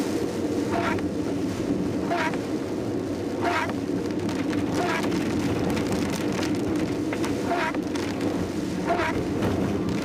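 Inside a car's cabin in heavy rain: the windscreen wipers sweep about every second and a third, each stroke a short swish, over steady road and engine noise and rain on the car.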